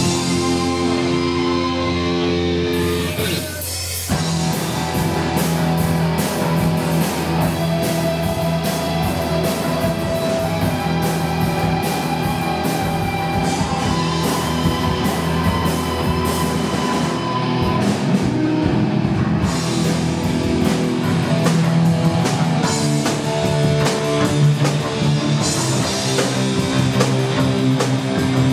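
Live heavy metal band playing: electric guitars, keyboard and drum kit. About three seconds in the sound dips briefly, then the drums and cymbals drive on under held guitar chords.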